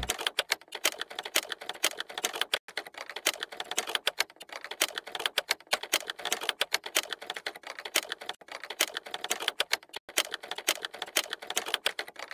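Typing: rapid, uneven key clicks, several a second, with short pauses between runs.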